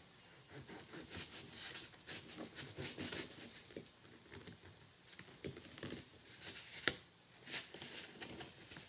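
Knife and fork cutting pancakes on a plate: faint scrapes and light clinks of the cutlery against the plate, with one sharper clink about seven seconds in.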